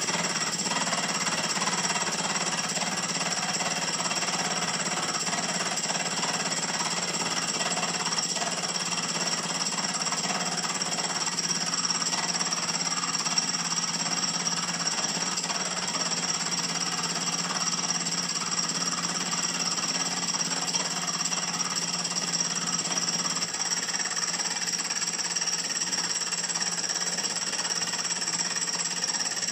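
Benchtop milling machine running with a boring head spinning, taking a boring cut across the curved saddle of a model traction engine's cylinder block so that it will sit on the boiler. It gives a steady motor hum and high whine under the noise of the cutter on the metal.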